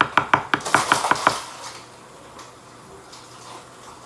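A rapid run of light, sharp taps, about six a second, that stops about a second and a half in.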